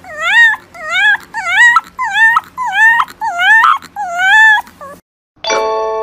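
A fluffy white puppy giving a rapid run of short, high whimpering howls, about two a second, each dipping and then rising in pitch. The calls stop about five seconds in, and ringing chime tones begin near the end.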